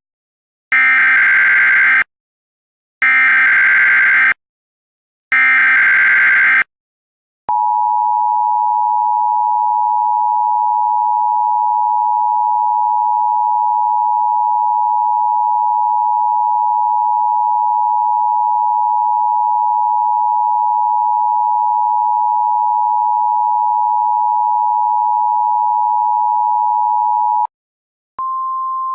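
Emergency Alert System alert tones: three short bursts of screeching SAME header data, then the long steady two-tone attention signal for about twenty seconds. After a brief gap, a single steady tone starts near the end.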